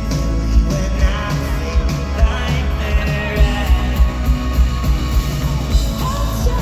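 Live indie folk-rock band playing through an arena PA, with sung vocals over a steady, loud kick-drum beat.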